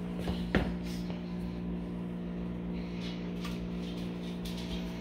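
Microwave oven running with a steady electric hum while it heats a frozen meal. A single sharp knock comes about half a second in.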